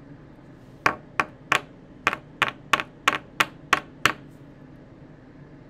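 A run of about eleven sharp taps, roughly three a second, from a hard plastic trading-card holder being knocked against a wooden desk.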